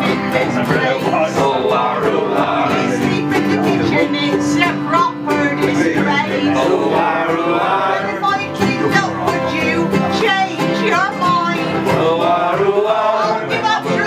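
Live acoustic music: a woman singing over a strummed ukulele and other acoustic instruments, with long held notes running beneath.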